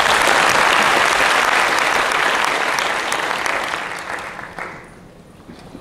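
Audience applauding at the close of a talk, a dense patter of claps that is loudest for the first three seconds or so, then thins and dies away about five seconds in.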